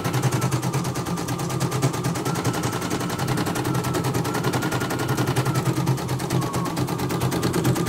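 A CNY portable embroidery machine stitching: its needle makes a rapid, even clatter of stitches over a steady motor hum and a thin whine that steps slightly up and down as the hoop moves.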